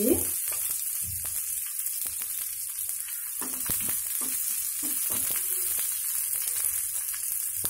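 Oil sizzling steadily in a nonstick frying pan as chana dal, urad dal and green chillies fry for a tempering. A wooden spatula stirs and scrapes the pan now and then with light clicks.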